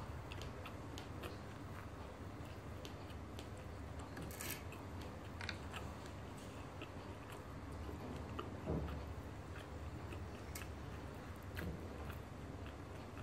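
A person chewing and biting roti prata, with small wet mouth clicks scattered throughout. There is a sharper click about four and a half seconds in and a soft thump a little after the middle.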